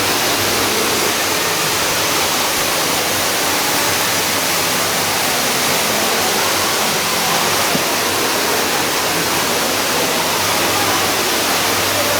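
Ruby Falls, an underground waterfall in a cave, pouring steadily: an even, unbroken rush of falling water.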